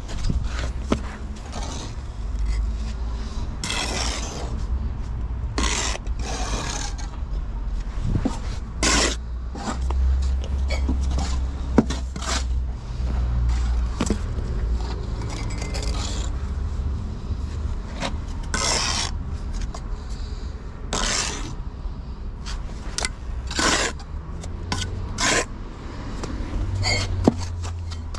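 Steel brick trowel scraping and scooping sand-and-cement mortar off a mortar board and spreading it onto bricks, in short scrapes every second or so, with a couple of sharp taps. A steady low rumble runs underneath.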